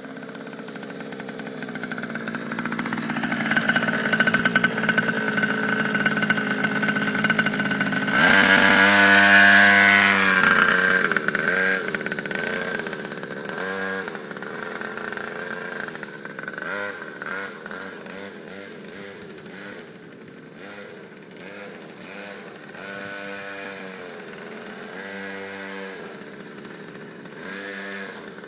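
Quad bike engine running and revving. It grows louder over the first several seconds and is loudest about eight to eleven seconds in, then drops back, with short repeated revs.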